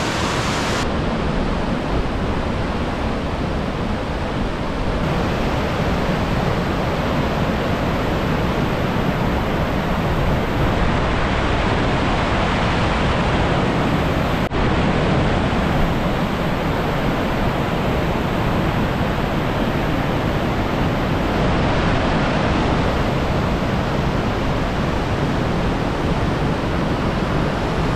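Mountain river rapids rushing over boulders: a steady, even rush of water, with a brief break about halfway through.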